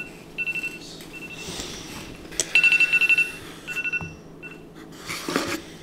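Electronic alarm beeping in repeated bursts of rapid beeps, a high tone over a lower one, that stop about four seconds in; a short vocal sound follows near the end.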